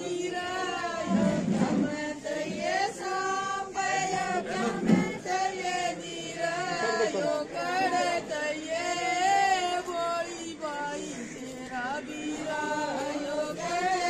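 A group of women singing a traditional wedding folk song together in long, wavering held lines.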